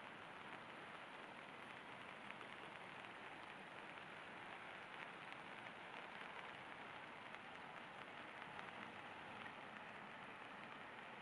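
Soft, steady rush of running creek water and falling rain, with faint scattered drop ticks.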